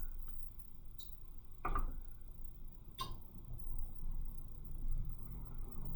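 Three light, sharp clicks spread over the first half, over a low steady hum.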